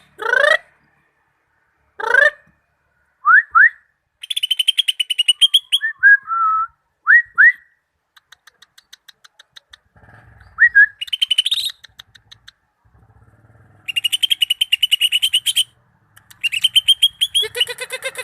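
Cucak ijo (green leafbird) singing a varied song: quick upward-sweeping whistles, short slurred notes and fast rattling trills, given in bursts with short pauses between them.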